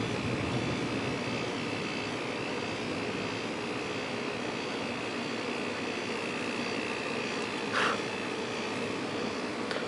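Steady rushing, droning noise, with two short swishing sounds near the end.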